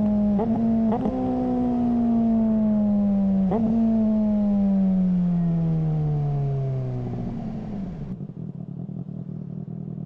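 Suzuki GSR600 inline-four motorcycle engine through a GPR Ghost exhaust: its note falls slowly and steadily in pitch over about seven seconds as the engine slows, broken by three brief blips within the first four seconds. It then settles into a low, rough idle.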